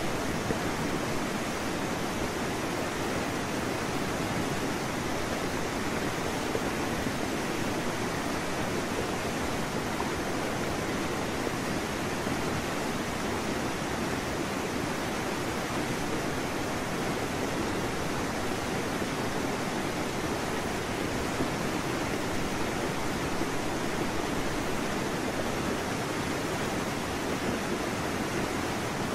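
Steady, unchanging rushing noise like a hiss.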